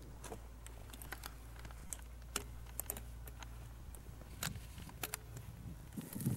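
Faint, irregular sharp clicks and ticks, about a dozen, over a low steady rumble that drops out near the end.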